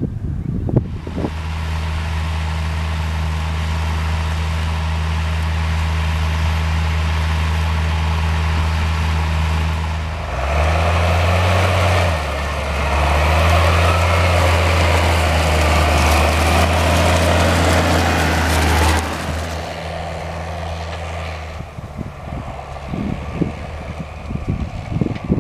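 A Case IH tractor's diesel engine running steadily under load as it pulls a slurry tanker with a tine injector through the soil. It grows louder as the rig passes close, with the engine note rising and then dropping, and fades as it moves away. Wind buffets the microphone near the end.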